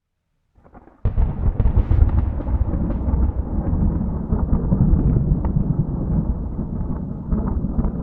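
Heavy thunder: after a faint lead-in, a sudden loud crack about a second in, then a long deep rumble with crackles running on.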